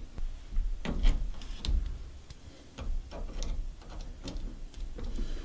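Scattered light clicks and taps as hose clamps are put back onto the washing machine's fill valve hoses by hand, irregular, a few a second.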